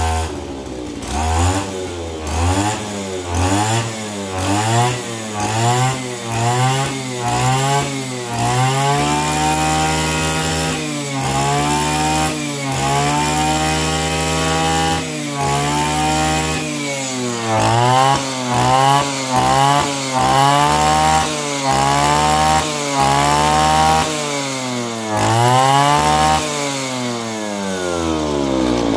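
Mitsubishi T180 brush cutter's 36 mm two-stroke engine being revved with the throttle: a run of quick blips up and down, then two longer holds at high revs, then more quick blips, before it drops back toward idle at the end.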